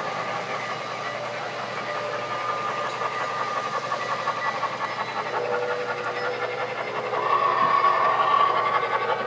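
Three-rail O-gauge model trains running on a layout: a steady hum and rumble of wheels on the track, growing louder about seven seconds in.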